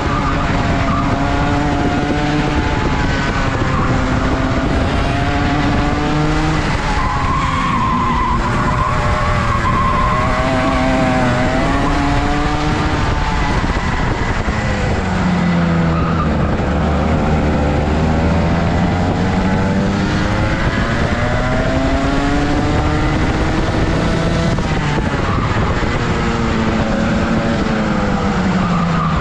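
Rotax racing kart engine revving up and down lap after lap, its pitch climbing and dropping every few seconds as it runs through the corners.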